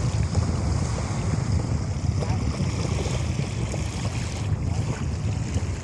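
Wind buffeting the microphone in a steady low rumble, with small waves washing onto a sandy shore.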